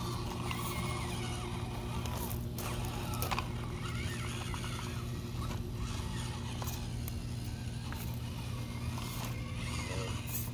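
Two 1/18-scale FMS FCX24 Power Wagon RC crawlers' small electric motors and gearboxes whirring as they climb rocks, with scattered clicks and knocks of tyres and chassis against the stones, over a steady low hum.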